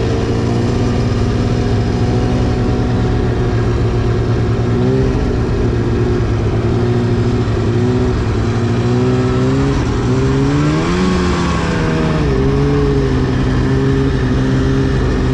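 2010 Arctic Cat CFR 1000's 1000cc two-stroke engine running under way. Its pitch dips and recovers about five seconds in, then rises and falls again around the eleven-second mark as the throttle is worked.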